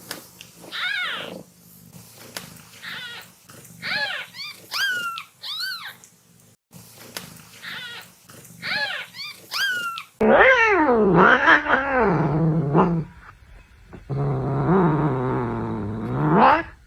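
Newborn kittens mewing: short, high-pitched, arching cries in quick succession. About ten seconds in, the sound changes to louder, much lower and long drawn-out cat meows, two of them lasting two to three seconds each.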